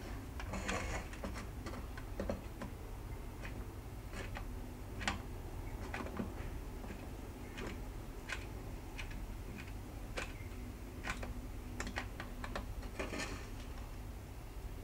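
Hot glue gun in use: irregular light clicks from the trigger feed and small plastic taps as glue is worked into a plastic battery adapter housing.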